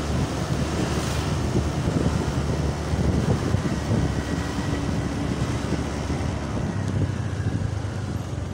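Wind rumbling on the microphone of a moving Honda Scoopy scooter, over the steady run of its small engine and road noise.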